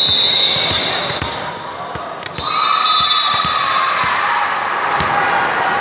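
A referee's whistle sounds once for about a second, and a volleyball is bounced several times on the hardwood gym floor. About two and a half seconds in, players' voices call out for a couple of seconds.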